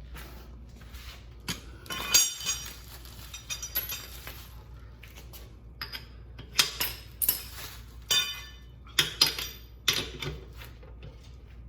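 Lug nuts and hand tools clinking as they are handled: a series of sharp metallic clinks at irregular intervals, the loudest about two seconds in and several more in the second half.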